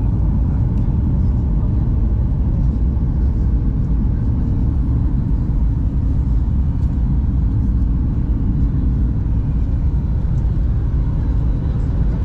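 Steady low rumble of cabin noise inside a Boeing 737 MAX 8 airliner in flight: its CFM LEAP-1B jet engines and the rush of air over the fuselage.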